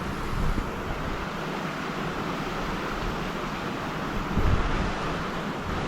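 Steady rush of flowing stream water, with wind buffeting the microphone in low rumbles about half a second in and again just past four seconds.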